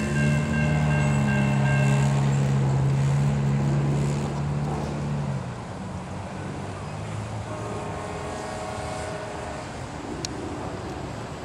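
Railroad crossing bell ringing, stopping about two seconds in as the gates lift. Under it a loud low engine hum that drops away about five seconds in, then cars driving over the crossing.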